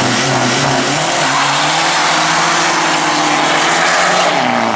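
Two tuned hatchbacks launching side by side off a drag-strip start line, engines revving hard as they accelerate away. The engine note climbs, holds, then drops near the end as a gear is changed.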